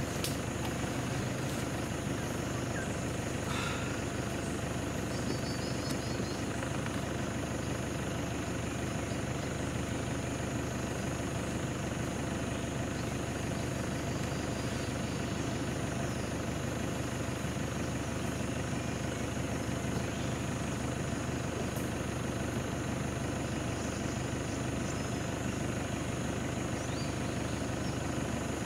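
An engine idling steadily, a low even hum throughout, with a few faint high chirps about five seconds in.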